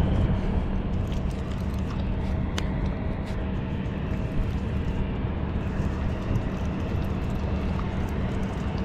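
Baitcasting reel being cranked steadily against a hooked fish, a continuous gear whir over a constant low rumble.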